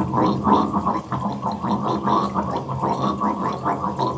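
Sink drain gurgling as running water goes down it: a continuous rapid bubbling and glugging over a steady low drone.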